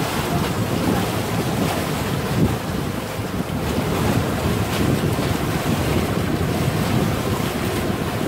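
Wind buffeting the microphone over water rushing and splashing past the hull of a solar electric outrigger boat under way, a steady noisy rush.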